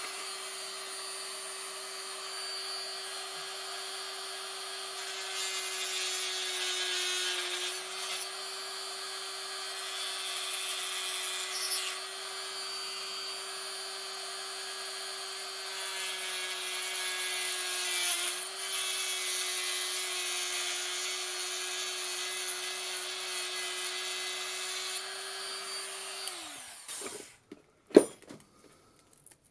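Small high-speed rotary power tool running steadily as it grinds and trims a cast moulding piece to shape, its pitch dipping briefly under load twice. Near the end it is switched off and winds down, followed by a sharp knock.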